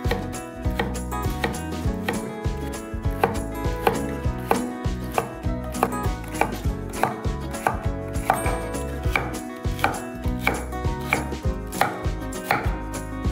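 Kitchen knife chopping food on a cutting board in a steady rhythm, about two to three strokes a second.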